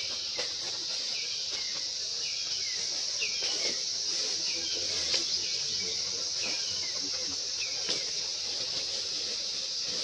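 Forest ambience: a steady high-pitched insect drone, with a bird repeating a short chirp about once a second and a few faint clicks or rustles.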